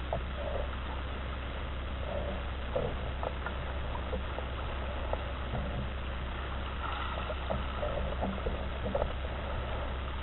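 Water lapping and splashing in small irregular bursts, as against a floating model, over a steady low hum.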